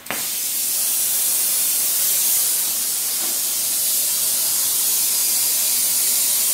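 Oxyhydrogen (HHO) torch flame hissing steadily. It starts abruptly with a short pop as the torch comes on.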